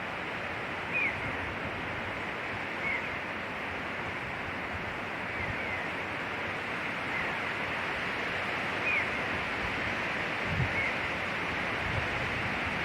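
Wind blowing through pine trees, a steady rushing hiss, with a few faint short chirps scattered through it.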